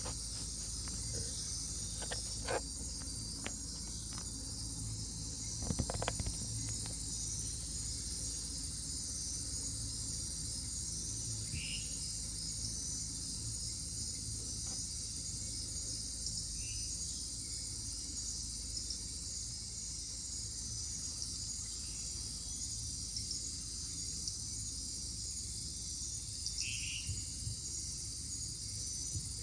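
Night-time rainforest insect chorus, a dense, steady high-pitched trill from many crickets and katydids. A few short calls stand out about twelve, seventeen and twenty-seven seconds in, and there are scattered clicks in the first few seconds.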